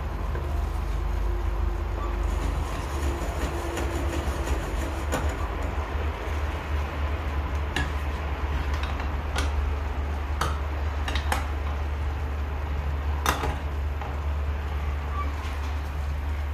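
Cooking sounds at the stove: a steady low rumble and hiss, with a metal utensil clicking against the pan six or so times, the loudest about 13 seconds in.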